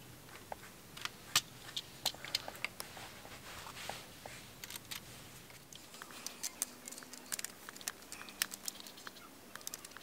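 Scattered small clicks, ticks and light rustling of electrical wires being worked by hand into a metal outlet box.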